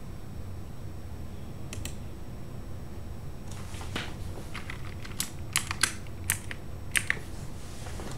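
Computer keyboard typing: a brief flurry of keystrokes, then a longer irregular run of sharp key clicks in the second half, over a steady low hum.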